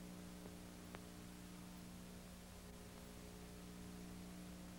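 Near silence: a steady low electrical hum with a faint click about a second in.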